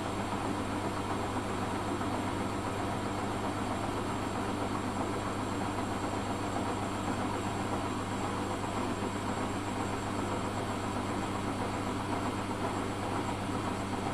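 Zanussi FA623 washing machine running with a steady, even hum.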